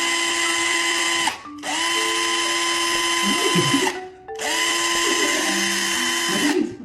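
Handheld electric drill running in three bursts of about two seconds each, its motor whine spinning up at each trigger pull and winding down at each release. Short stepped musical notes sound underneath.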